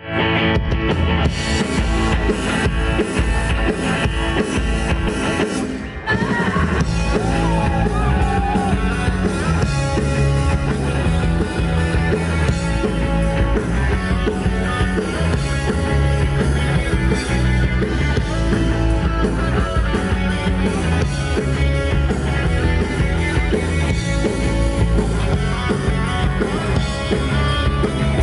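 A rock band playing live through amplifiers: distorted electric guitars, bass guitar and drum kit, loud and steady, with a brief dip in volume about six seconds in before the full band carries on.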